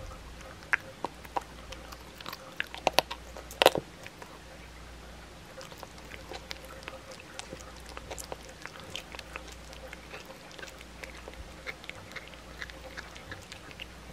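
A cat chewing and crunching a raw chicken back, the bones cracking between her back teeth: several loud, sharp crunches in the first four seconds, then steadier, quieter chewing.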